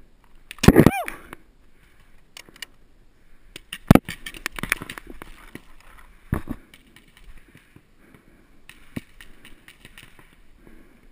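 Scattered sharp pops of paintball markers firing and paintballs striking, the loudest about four seconds in and again past six seconds, with one short loud shout near the start.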